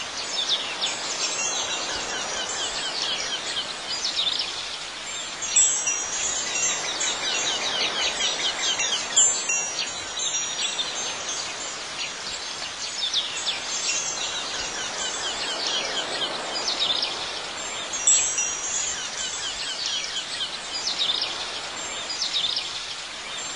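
Wind chimes tinkling, with clusters of high ringing strikes every few seconds over a soft hiss.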